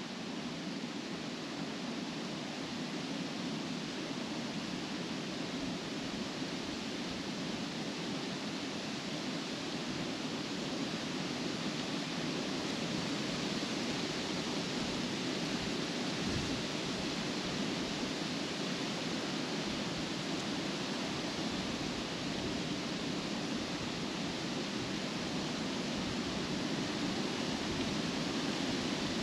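Wind blowing through trees, leaves rustling in a steady, even wash that swells only slightly near the end.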